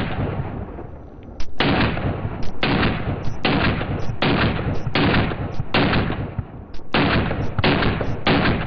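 AR-15 rifle firing a steady string of single shots, a little under a second apart, each followed by a trailing echo.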